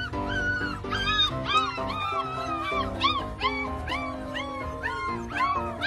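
Puppy whining in short, high, rising-and-falling cries, about three a second, over background music.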